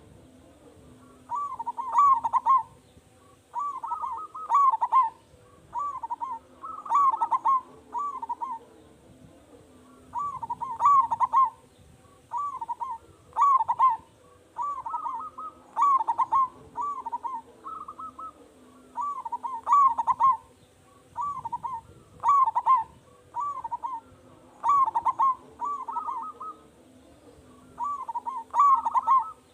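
Zebra dove (perkutut) in full song, with a loud voice: short phrases of quick, clipped coos repeated every couple of seconds with brief pauses between.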